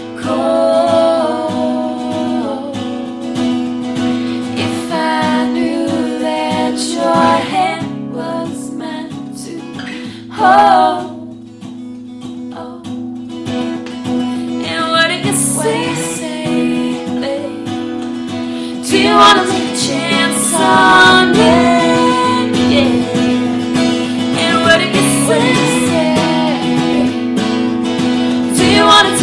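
Acoustic guitar strummed under a woman's singing. The voice thins out and the music drops quieter for a few seconds around the middle, then the singing comes back fuller and louder.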